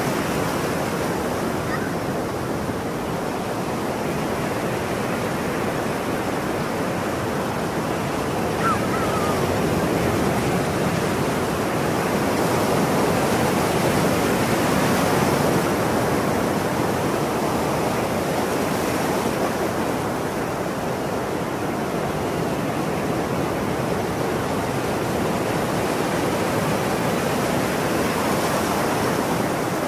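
Ocean surf washing continuously, swelling and easing slowly over several seconds, with one faint, brief seagull call about nine seconds in.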